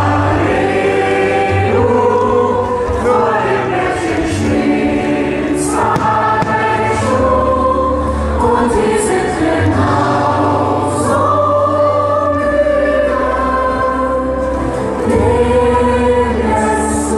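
Choral music: a choir singing sustained, gliding lines over a low bass.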